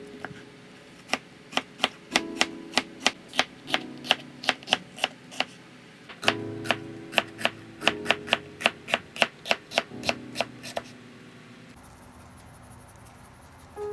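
Knife chopping on a cutting board in a quick, even rhythm of about four cuts a second, in two runs with a short pause between, over quiet background music.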